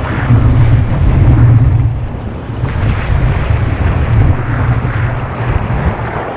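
Heavy wind buffeting on the deck-mounted camera's microphone over the rush of breaking whitewater around a surf kayak riding a wave, growing quieter over the last few seconds.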